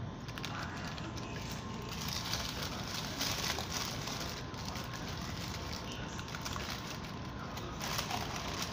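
Paper burger wrapper crinkling as it is unwrapped, loudest about two to four seconds in and again near the end, over steady background noise.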